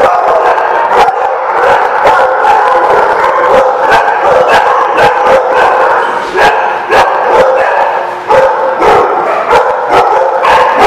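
Dogs growling and barking in rough play, almost without a break and loud, with frequent sharp clicks.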